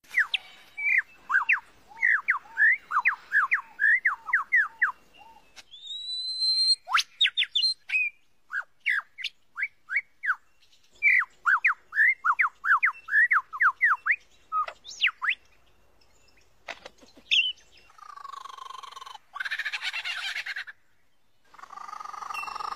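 A lyrebird singing its mimicry song: runs of quick, sweeping whistled notes at about three a second, broken around the middle by a rising whistle, a high steady tone and sharp clicks. Near the end come harsher, buzzier calls with many tones.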